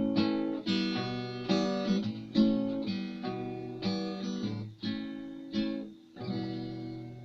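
Acoustic guitar strumming the closing chords of a song, one chord roughly every second, the last one left to ring and fade.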